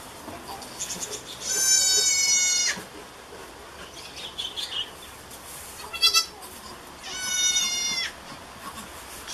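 Newborn goat kid bleating: two long, high calls about a second each, with a short bleat between them.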